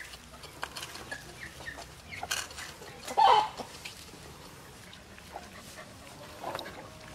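Chickens clucking, with short calls about a second in and a louder call about three seconds in, among small scattered clicks.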